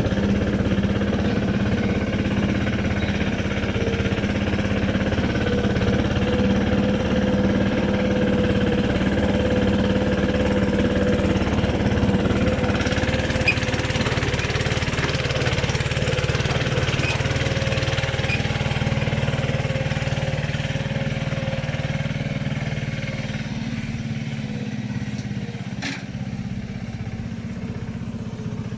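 Patpat, a two-wheel tractor pulling a trailer, with its single-cylinder diesel engine running steadily as it travels along a dirt track. It grows fainter near the end as it pulls away.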